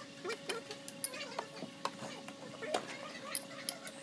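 Scattered sharp metallic clicks and clinks of hand tools and parts being handled in a car's engine bay, over a faint steady hum, with a few short voice-like calls between them.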